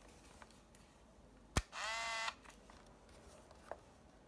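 Olympus 505 compact 35mm film camera firing: the shutter clicks once, then the camera's small motor whines for about two-thirds of a second, rising slightly in pitch as it winds the film on. A faint click follows near the end.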